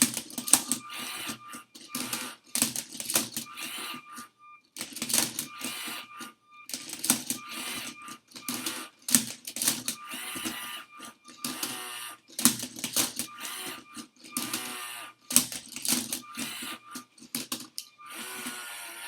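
LEGO Spike Prime motors driving a Rubik's cube solver, turning the cube move after move: short bursts of motor whine with plastic clicking and clacking, about one move a second with brief pauses between, as the solve nears its end.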